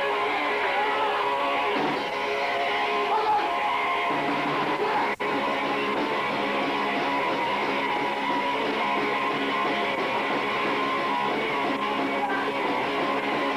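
Punk band playing live, electric guitars strummed over the rest of the band, with no vocals. The sound drops out for an instant about five seconds in.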